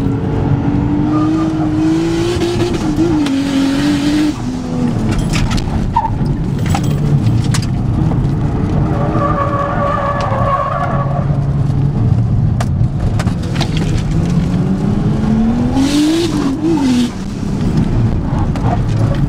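Nissan R34 Skyline GT-T's turbocharged straight-six heard from inside the cabin under hard autocross driving, its note rising and falling with throttle and gear changes. Tyres squeal for a couple of seconds about nine seconds in. Near the end the engine pulls up in pitch, then drops sharply.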